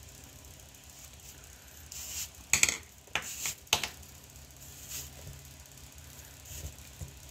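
Leather glove lace being pulled through a lacing hole in a baseball glove's web: a few short scraping sounds, bunched together a couple of seconds in, over a faint low hum.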